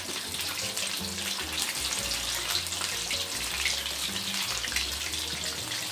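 Besan-battered chicken leg pieces deep-frying in hot oil in a karahi: a steady, dense bubbling and crackling sizzle.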